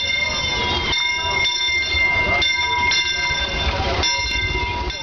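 Disneyland Railroad steam train rolling slowly past, with a low rumble, clicks from the wheels, and a steady high-pitched squeal of several tones at once that breaks off briefly now and then.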